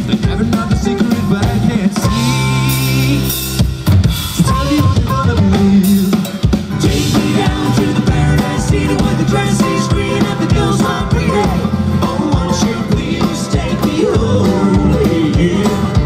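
Live band playing a hard rock song in a country arrangement, with banjo in place of electric guitar over a drum kit.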